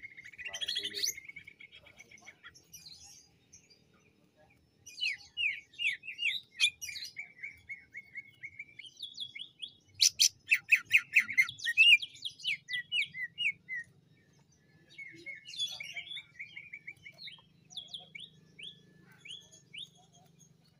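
Male green leafbird (cucak ijo) singing: phrases of rapid, high chirps and trills broken by short pauses, with the loudest burst about halfway through.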